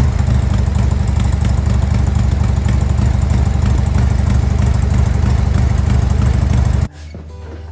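Harley-Davidson 2001 Sportster 1200S's air-cooled V-twin idling steadily through its stock mufflers, freshly started with the choke on. The engine sound cuts off abruptly near the end.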